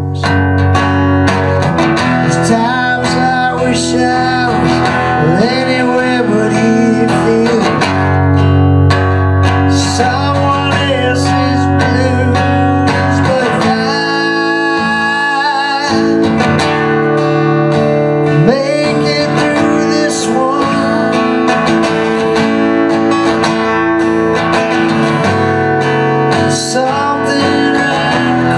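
A man singing and strumming an acoustic guitar, a solo live song performance.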